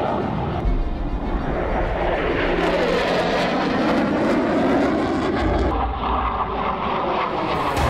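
Airplane engine noise of an aircraft flying past, steady and loud, with a sweeping, shifting tone as it passes; the sound changes abruptly about six seconds in.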